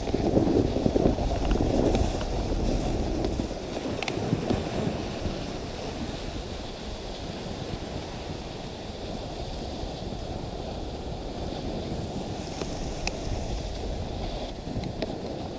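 Dog sled moving over snow: a steady rush of the runners sliding on the snow trail mixed with wind buffeting the microphone, louder for the first few seconds, with a few faint clicks.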